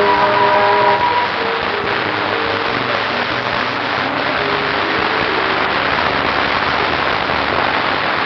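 Film soundtrack: a sustained musical chord ends about a second in, giving way to a steady rushing noise with faint held musical tones beneath it.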